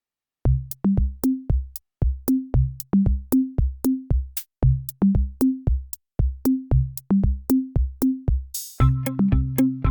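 Background music: a drum-machine beat of short, pitched bass-drum notes and crisp clicks. A brief swish comes near the end, after which fuller synth chords join in.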